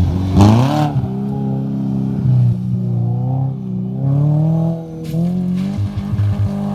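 A Subaru Forester's engine revving hard as the SUV accelerates close past, its pitch sweeping up sharply about half a second in with a short burst of tyre-on-gravel noise. It then revs on under load, the pitch rising and falling with gear changes as it drives away and starts up a steep dirt slope. Near the end the revs flare and cut unevenly.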